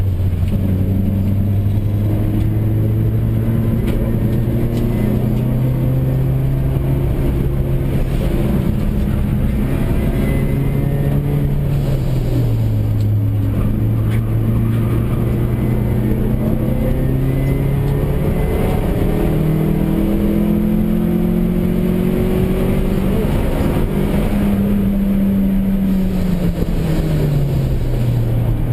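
1992 Nissan Sentra SE-R's 2.0-litre four-cylinder engine under hard track driving, heard from inside the cabin. The engine note climbs steadily under acceleration and drops sharply twice, about twelve seconds in and near the end.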